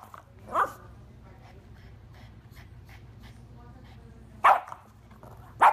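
A pug barking at a rubber duck toy: three short barks, one just after the start and two near the end about a second apart.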